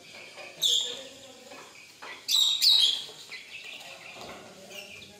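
Loud, high bird chirps: one call about half a second in, then two or three more in quick succession just after two seconds, with fainter chirping between.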